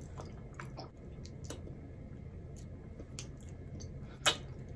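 Faint wet mouth clicks and smacks of a person sucking and tasting a cola-flavoured lollipop, with one louder click near the end.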